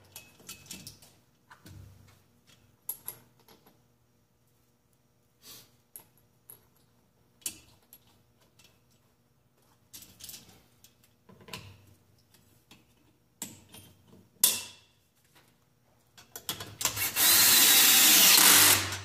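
Scattered metal clicks and clanks of snowmobile track studs, backer plates and nuts being handled and pressed through the track with a hand-operated stud clamp. Near the end a loud, steady rushing noise takes over for about two and a half seconds.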